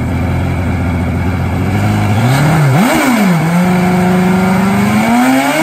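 Turbocharged 1260 cc Kawasaki KZ four-cylinder drag bike engine with mechanical fuel injection, idling steadily, then revved in two quick blips about two seconds in. It settles at a higher, steady speed and rises again near the end.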